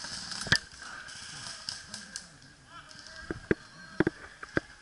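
Airsoft guns firing single shots in a game: about six sharp snaps, one loud shot about half a second in, then a scattered cluster of five near the end.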